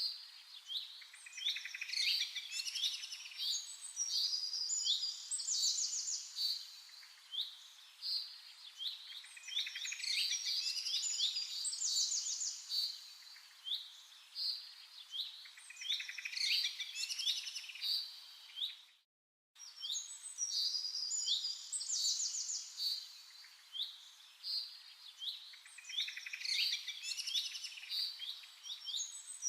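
Many small birds chirping and trilling: a dense run of short, high-pitched chirps and quick rattling trills. It breaks off for an instant about two-thirds of the way through.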